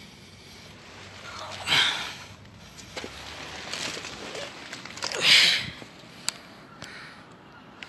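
Two heavy breaths close to the microphone, about three seconds apart, the second one louder, followed by a few small clicks from the phone being handled.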